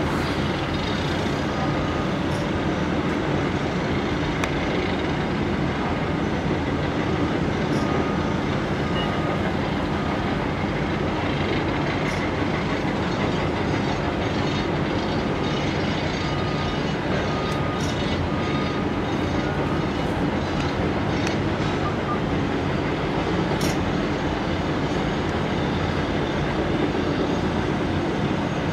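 Heavy diesel construction machinery running steadily in a foundation pit, among it a Caterpillar 950H wheel loader moving dirt. The rumble is dense and even, with a few sharp knocks from metal and rock, the loudest about two-thirds of the way in, and a faint high tone that sounds on and off through the middle.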